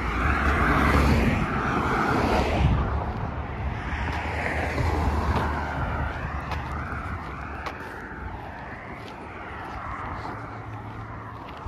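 A motor vehicle passing close and fading away, loudest in the first few seconds and dying down gradually after that.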